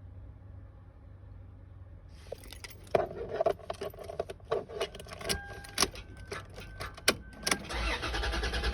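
Car keys jangling on their ring with sharp clicks and rattles as the key is worked in the ignition of a 2014 Toyota 4Runner that keeps failing to start. Near the end a steadier, louder noise sets in.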